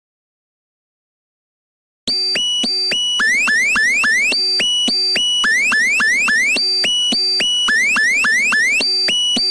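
Silence, then about two seconds in a loud synthesized electronic alert tone starts: a fast repeating pattern of buzzy beeps and short rising chirps, the attention signal of a mock Emergency Alert System warning.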